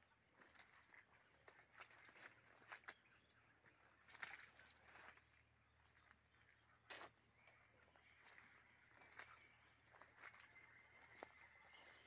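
Faint, steady high-pitched insect drone, with irregular footsteps and rustling as someone walks through leaf litter and brushes past undergrowth.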